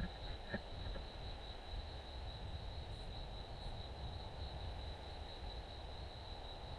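Crickets singing in one steady, unbroken high-pitched chorus over a low background rumble.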